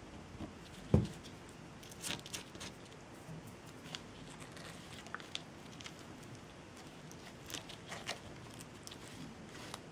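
Faint clicks, taps and light rustles of hands laying jute thread and handling small craft tools on a work surface, with one sharper knock about a second in.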